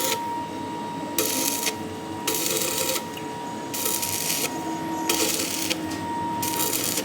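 Metal lathe running with a steady whine, while hissing cutting noise comes and goes in bursts of about half a second, roughly once a second.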